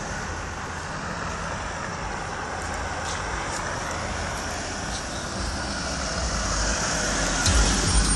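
Audi Q7 pulling up close alongside, its engine and tyre rumble growing louder over the last few seconds, over steady street traffic noise.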